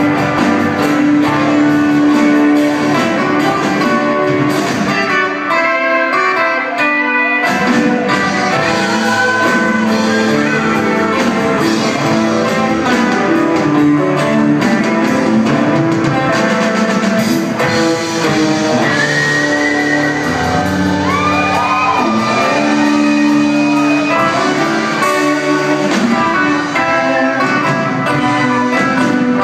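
Live band music with guitars to the fore. The bass drops out for about two seconds around six seconds in, and there are bending guitar notes around twenty seconds in.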